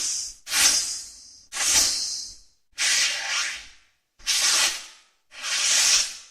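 A series of short whoosh transition sound effects, about one a second. Each is a brief airy hiss that fades out, with silence between them.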